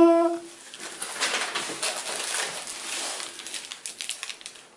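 A held hummed note ends in the first half second, followed by a clear plastic bag crinkling and rustling in the hands, in dense irregular crackles.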